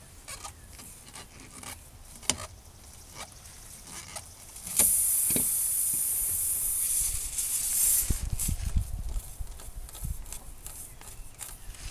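Air hissing out of a punctured truck tire: a loud hiss starts suddenly about five seconds in and lasts about three seconds, the tire leaking through the nail hole with the screw pulled out. Around it, scattered clicks and scrapes of the tire-plug reamer working the hole.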